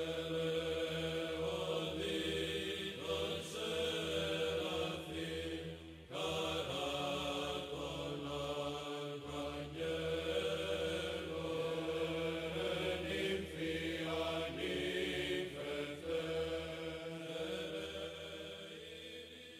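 Chanted vocal music over a steady low drone, with a short break about six seconds in, fading out near the end.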